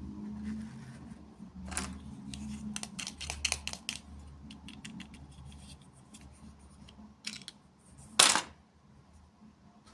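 Small plastic toy pieces and packaging being handled in an unboxing: a run of light clicks and rustles, then one short, louder crackle near the end.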